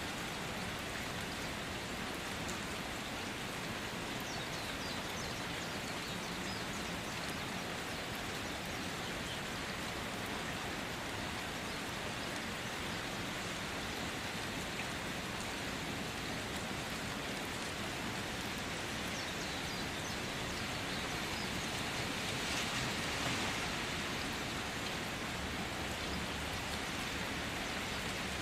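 Food frying in oil in a pot, a steady sizzle with faint crackles, swelling a little louder for a few seconds near the end.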